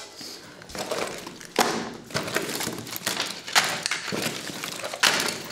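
Rummaging in a handbag and putting things down on a desk: rustling and clattering, with several sharp knocks.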